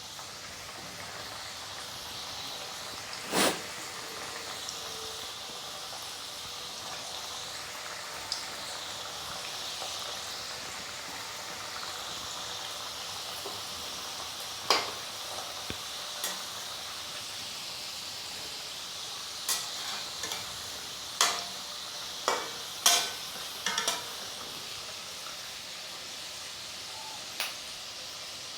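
Wheat-flour snack pieces deep-frying in hot oil in a kadhai: a steady sizzling hiss. Occasional sharp knocks cut through it, once early and several close together in the second half.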